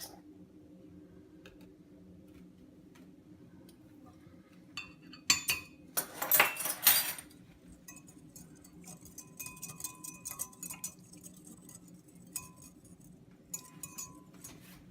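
A spoon stirring borax into hot water in a cup, clinking and ringing against the sides. There is a louder clatter about five to seven seconds in, then a run of light, quick taps.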